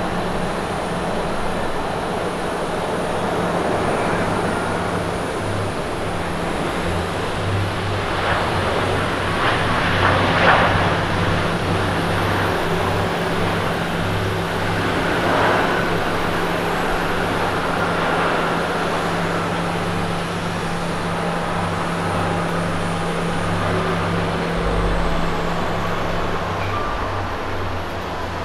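Airbus A350-900 jet engines and rollout noise as the airliner decelerates on the runway after touchdown: a steady rushing sound with a low hum underneath, swelling about ten seconds in and again about fifteen seconds in.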